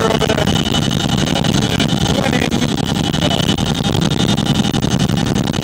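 Loud, steady cabin noise of a CH-47 Chinook tandem-rotor helicopter in flight: its twin turboshaft engines, rotors and gearboxes, with a steady high whine over the deep rumble.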